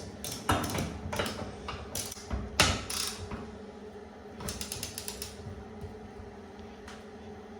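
Ratchet tap spanner clicking in short bursts as it works a tap connector nut, with knocks of the metal tool, and a quick run of ratchet clicks about four and a half seconds in.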